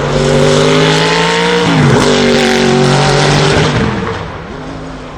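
Sauber Mercedes C9's turbocharged 5.0-litre V8 at full throttle, its pitch climbing. About two seconds in it dips sharply on an upshift, then pulls again at a lower pitch and fades away near the end.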